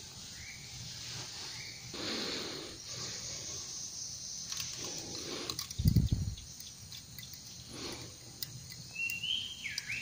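Outdoor ambience with scattered rustles and handling noises, a dull thump about six seconds in, and a short bird chirp near the end.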